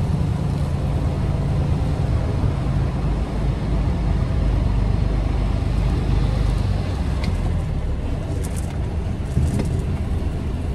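Semi-truck tractor's diesel engine running at low revs, heard from inside the cab as the truck reverses; a steady, low-pitched sound with a few faint clicks near the end.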